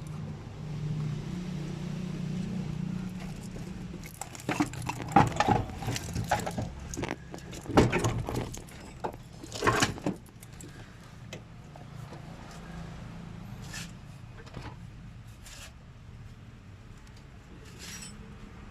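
Metal clinks and knocks of tools and parts being handled during clutch work: a cluster of sharp hits in the middle, then a few scattered clicks, over a low steady hum at the start.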